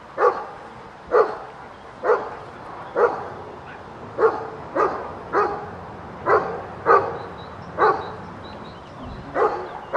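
Briard barking over and over in short, sharp barks, a little more than one a second, with no let-up.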